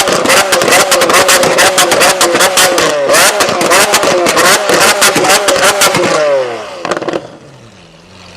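Lamborghini Aventador's V12 revved hard in repeated blips, its exhaust crackling and popping rapidly. About six seconds in, the revs fall away with a last few pops and the sound drops off.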